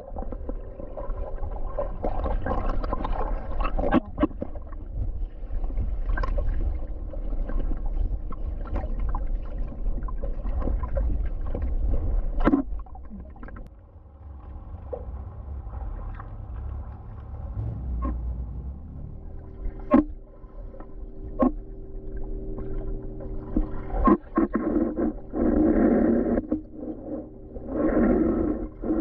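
Underwater sound of a swimming pool picked up by a submerged camera while a swimmer moves through the water: a low rumble with scattered clicks and bubbling. A steady hum joins about two-thirds of the way in, and two louder bursts of bubbling come near the end.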